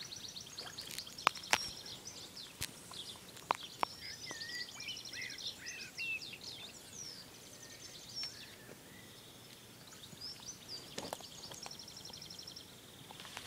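Songbirds singing: varied high chirps and fast trills, with a few sharp clicks in the first four seconds.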